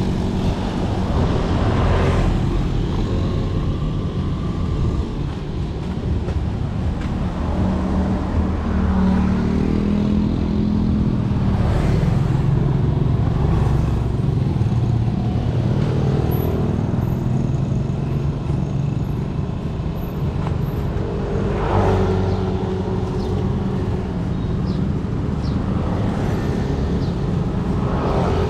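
Street traffic: a steady rumble of vehicles, with cars and motorbikes passing now and then.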